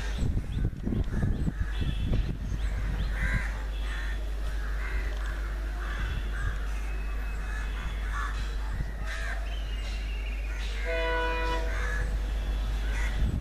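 Crows cawing over and over against a steady low rumble, with one short horn note about eleven seconds in.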